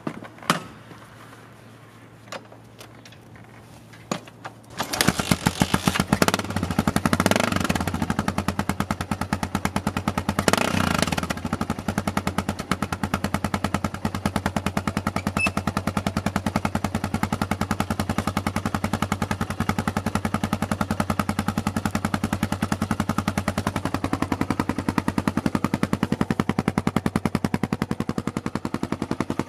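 Yamaha XT600's single-cylinder four-stroke engine starting about five seconds in and running through a Dominator aftermarket silencer: a fast, even thumping, revved up twice shortly after it catches, then settling to a steady idle. A few clicks come before it starts.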